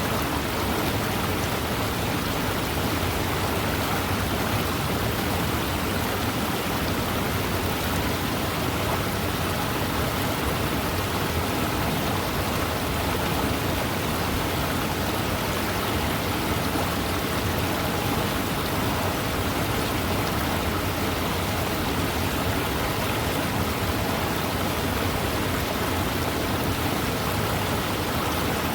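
Waterfall: falling water rushing as a steady, even hiss, with no changes in level or breaks.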